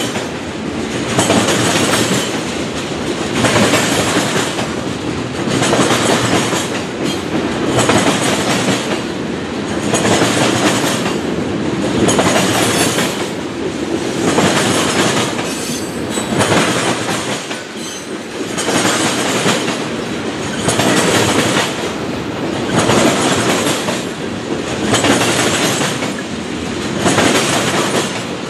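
Freight train tank cars rolling past close by: steel wheels rumbling and clattering on the rails, the sound swelling about every two seconds as each car's wheel trucks pass.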